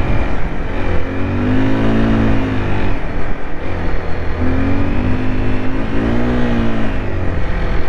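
A motor vehicle's engine running on the road with a loud rush of road and wind noise. Its pitch rises and falls twice as it speeds up and eases off.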